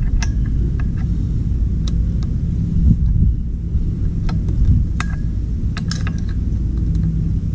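A few sharp metal clicks from a socket extension and a bolt being worked out of the thermostat housing on a Suzuki 250 outboard powerhead, over a steady low rumble.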